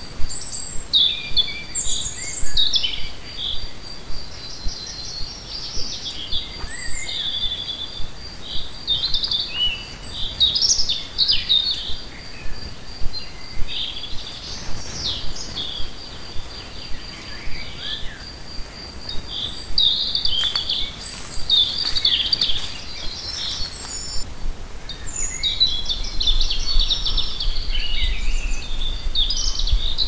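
A chorus of several songbirds singing, with many short, varied phrases and chirps overlapping, over a thin, steady high tone. A low rumble rises in the last few seconds.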